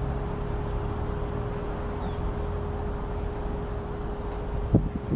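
Class 196 diesel multiple unit idling: a steady low engine rumble with a constant hum. A sharp thump near the end.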